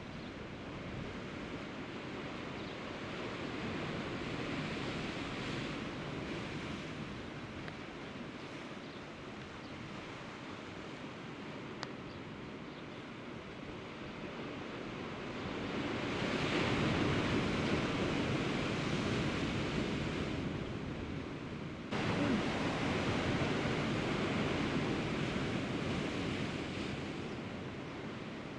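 Sea waves washing against shoreline rocks: a steady rushing noise that swells louder about halfway through and again, stepping up suddenly, a few seconds later.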